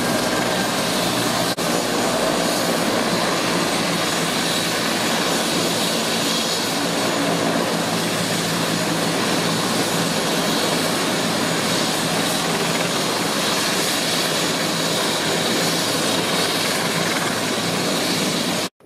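Airbus EC145 helicopter running on the ground with its rotor turning: the steady whine and rush of its twin turboshaft engines and rotor. The sound cuts off abruptly near the end.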